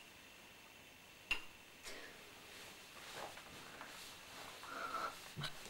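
Quiet small room with a single sharp click a little over a second in, then faint scuffs and rustles toward the end.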